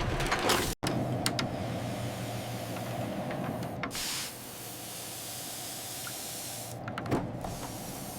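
Steady machine whirring and humming, broken once just under a second in, with a few light clicks and a short hiss about four seconds in, after which it runs a little quieter.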